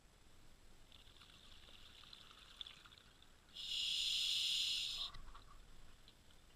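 Scuba diver breathing through a regulator underwater: a soft hiss for a couple of seconds, then a louder rush of exhaled bubbles lasting about a second and a half, ending in a short gurgle.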